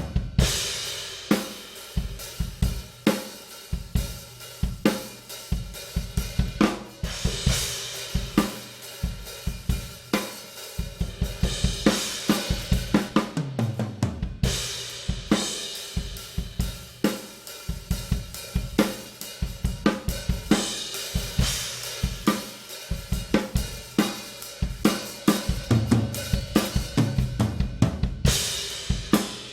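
Drum kit groove showcasing a Tama Artwood solid maple 14x8" snare drum, with hi-hat and bass drum keeping time. Several fills lead into cymbal crashes along the way.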